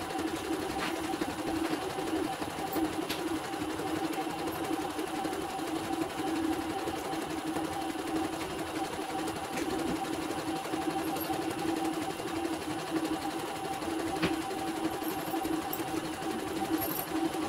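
CNY portable embroidery machine stitching a design in its hoop, a steady machine hum throughout, on its test run after servicing with no trouble left.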